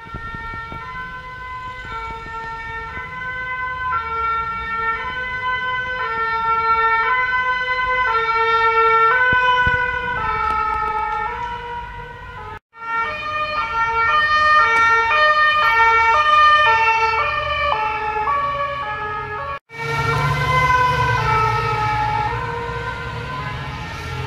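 Emergency vehicle two-tone sirens going past in the street, heard in three separate takes with abrupt cuts between them. The first swells louder over several seconds as the vehicle approaches and then eases off. The second, from a fire brigade rescue van, alternates more quickly, and the third comes with a heavier low engine and traffic rumble underneath.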